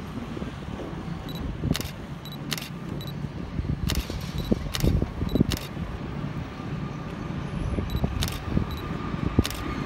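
Low, steady diesel engine rumble from an approaching Indonesian CC 206 locomotive still some distance off, under general town background noise, with scattered sharp clicks.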